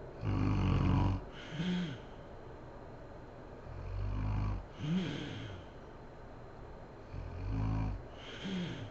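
A sleeping woman snoring: three snores about three and a half seconds apart, each a low rattling snore followed by a short whistling sound that rises and falls in pitch.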